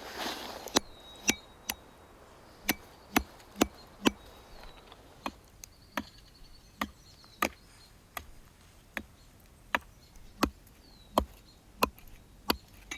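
Repeated chopping: about eighteen sharp strokes of a blade into wood, slightly uneven, roughly one every half to three-quarters of a second.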